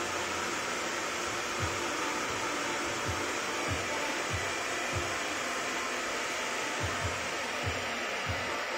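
Handheld hair dryer blowing steadily at close range on someone's hair. Soft low thumps come through it every half second to second from about a second and a half in.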